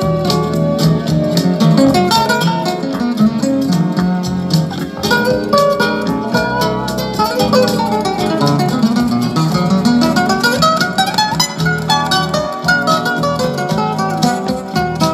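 Instrumental guitar music with quick plucked notes, played back through a pair of Bose for NEC S-101VM speakers.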